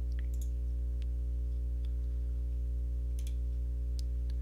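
Steady low electrical hum from the recording setup, with a few faint, scattered computer mouse clicks.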